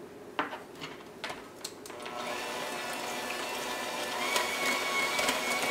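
Electric KitchenAid Artisan hand mixer running steadily, its beaters whisking an egg into thick chocolate brownie batter. It starts about two seconds in, after a few light clicks.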